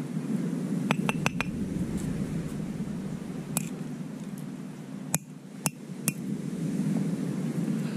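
Bussu river snail shells being cracked with a hand-held stone on a flat rock: sharp clinking knocks, a quick run of four about a second in, then single strikes scattered through the rest, over a steady low background noise.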